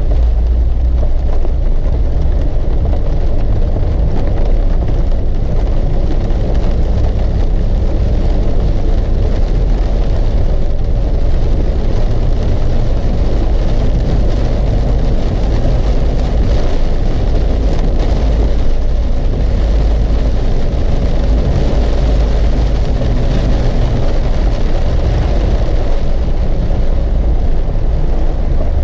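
A car driving in heavy rain: a steady low rumble of road and engine noise, with the hiss of rain.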